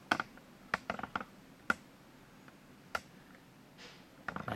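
About six sharp, separate clicks at irregular intervals, with a quiet room between them.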